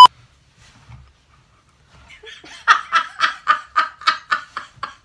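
A short loud beep right at the start, then, about two seconds in, a woman breaks into hard laughter: a quick run of about four laughing pulses a second that keeps going.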